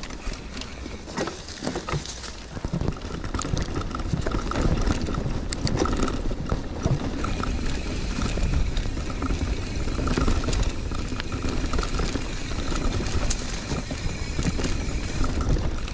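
Mountain bike rolling fast over leaf-covered dirt singletrack, with tyre and trail noise, clicks and rattles from the bike, and wind rushing over the handlebar-mounted microphone. It grows louder about three seconds in as the bike picks up speed.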